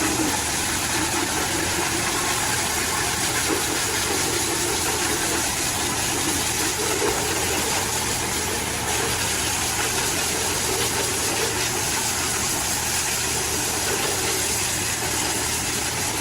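A machine running steadily: a constant low hum with an even hiss over it.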